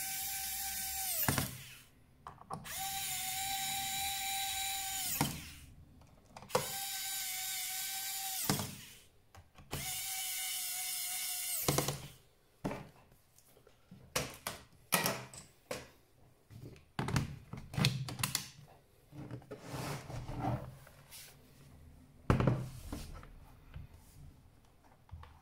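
Small electric screwdriver whining in four runs of about two seconds each, working the screws of a laptop, followed by scattered light plastic clicks and knocks as the laptop is handled.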